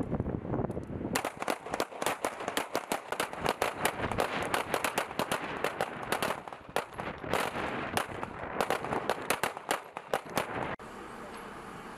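Beretta M9 9 mm pistols firing in rapid, irregular succession, the shots from several shooters on the line overlapping. Near the end the shooting cuts off suddenly, leaving a steady hiss.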